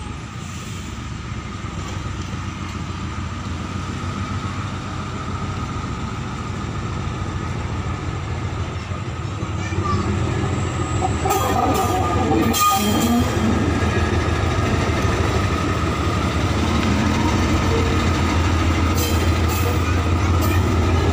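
KAI diesel locomotive running toward the listener, its engine growing steadily louder as it approaches, with a steady high whine. Short clicks and knocks from the wheels on the track come about halfway through and again near the end.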